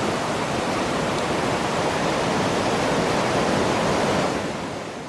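Ocean surf breaking and washing in, a steady rushing noise that fades out near the end.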